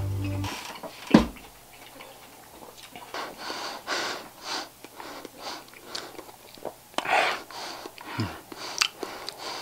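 Background music cuts off just after the start, then a single thump about a second in. After that comes a person's breathing and mouth noises very close to the microphone, a string of short hissy breaths and smacks.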